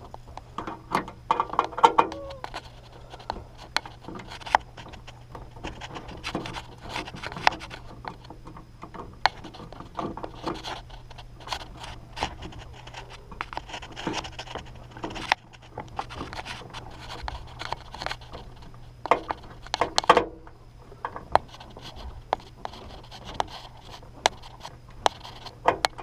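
Hands refitting a capacitor into its mount among the blower motor's wiring: irregular scraping, rubbing and clicking of metal parts and wires, over a steady low hum.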